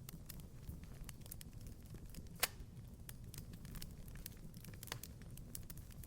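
Wood fire crackling in a fireplace: scattered small snaps over a low rumble, with one louder pop about two and a half seconds in.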